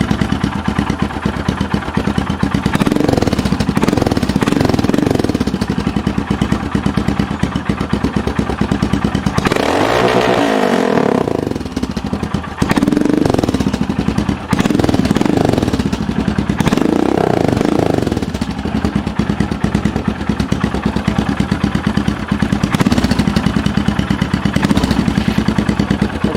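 Royal Enfield Himalayan's single-cylinder engine running through a Barrel Ghost II aftermarket exhaust, with an even thumping idle. The throttle is blipped several times, with one long, high rev about ten seconds in.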